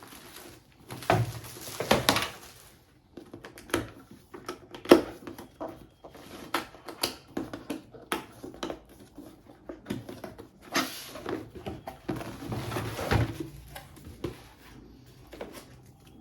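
Hands unboxing a computer power supply: cardboard box and packaging being handled, with irregular knocks, clicks and rustling as parts are taken out, busiest about a second in and again near the twelve-second mark.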